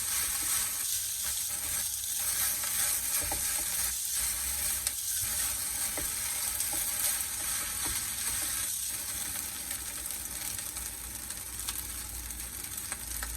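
Corned-beef fried rice sizzling steadily in a hot pan as it is stirred, with a few light clicks of the utensil against the pan.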